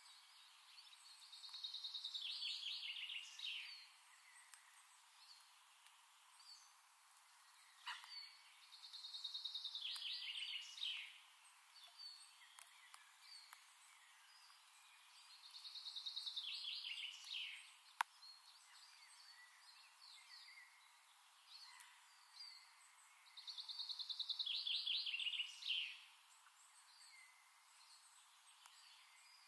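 A songbird singing the same rapid trilled phrase four times, each about two and a half seconds long and falling a little in pitch toward its end, over a faint steady hiss. A single sharp click comes about eighteen seconds in.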